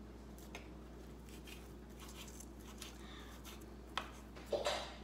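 Fresh basil and thyme being cut up on a cutting board: faint, irregular small clicks and taps, with a sharper click about four seconds in and a brief rustle right after.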